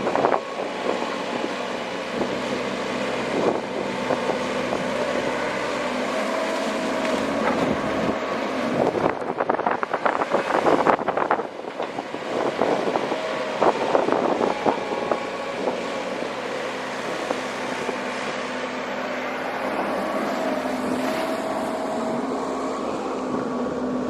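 Komatsu PC130 hydraulic excavator working: its diesel engine runs steadily under load, with a rising hydraulic whine twice. About ten seconds in, and again a few seconds later, there are bursts of clattering and scraping from the bucket working the riverbed.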